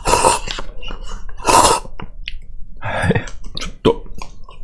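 A person slurping instant cup noodles: two loud slurps about a second and a half apart, then a softer mouth sound and a few light clicks.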